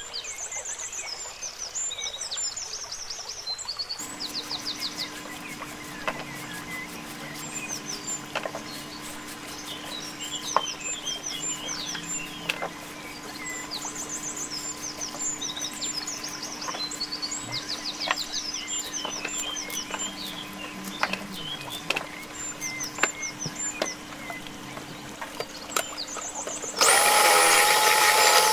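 Birds chirping and trilling throughout, over a steady low hum and scattered light clicks and scrapes from a vegetable peeler stripping carrots. Near the end a food processor motor starts abruptly and runs loud, grating carrots fed down its tube, and drowns out everything else.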